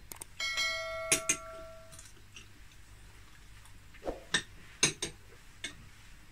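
A bell-like notification chime rings about half a second in and dies away over about a second and a half, followed by a few light clicks and clinks of a metal spoon against a small plate.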